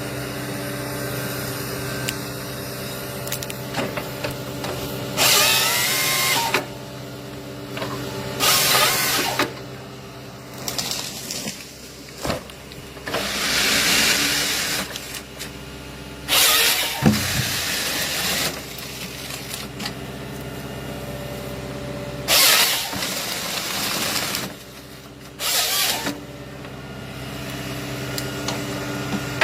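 Nisula 555C harvester head on a Volvo excavator at work. The excavator's diesel engine runs steadily under about six loud, harsh bursts a few seconds apart as the head cuts and processes tree trunks.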